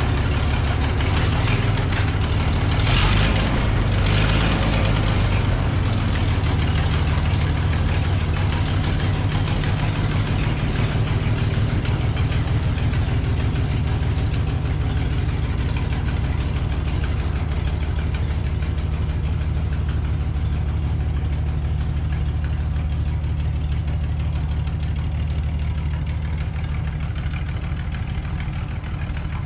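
Kubota tractor engine idling steadily, briefly rougher and noisier about three seconds in.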